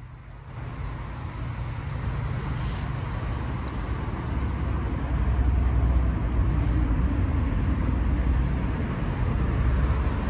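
Steady outdoor rumble with hiss, heaviest in the low end, growing louder about halfway through.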